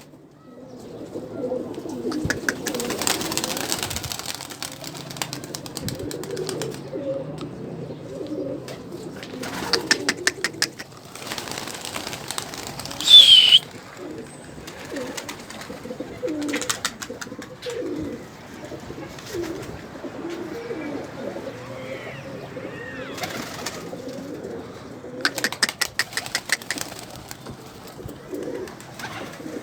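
Domestic pigeons cooing over and over. There are several bursts of rapid clattering. About thirteen seconds in comes a brief high-pitched squeal, the loudest sound.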